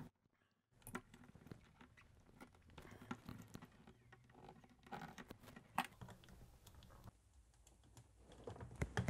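Faint clicks and scrapes of a small screwdriver, then needle-nose pliers, prying up the tabs on a computer power switch's housing, with a couple of sharper clicks in the middle.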